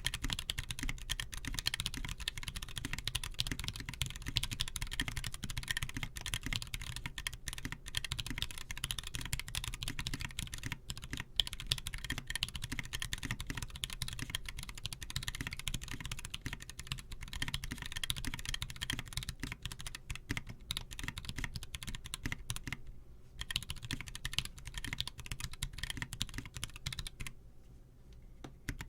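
Rapid, continuous typing on a custom mechanical keyboard, a dense run of key clicks and clacks. It breaks off briefly about two-thirds of the way through, then stops shortly before the end.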